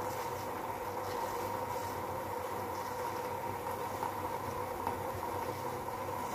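Tea boiling in a stainless steel pot on a gas stove: a steady bubbling hiss with a steady hum under it.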